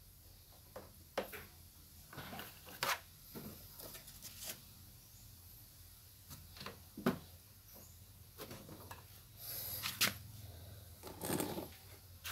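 Hands fitting a fuel hose and fittings onto a small two-stroke engine of a backpack sprayer: scattered, irregular light clicks, taps and rubbing of hose and plastic parts, with a longer rubbing noise near the end. The engine is not running.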